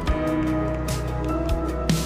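Background music: sustained notes over a beat with regular drum hits.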